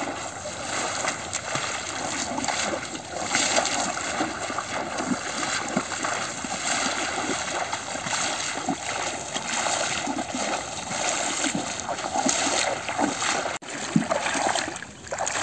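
Legs and feet splashing and churning through shallow muddy water as a man wades and runs through a flooded field, beating the water to drive fish into a net. The splashing is uneven and continuous, with a brief break near the end.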